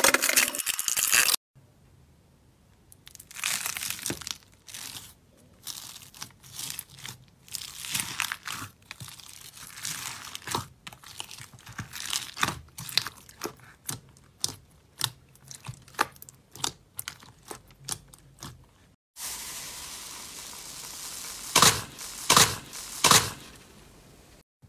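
Slime being squeezed and poked by hand, with many irregular crackles and pops. The sound runs through three clips: a thick yellow butter-type slime kneaded at first, then teal slime with foam beads squished, then a finger pressed into a tub of glossy yellow slime. Near the end come three or four loud pops.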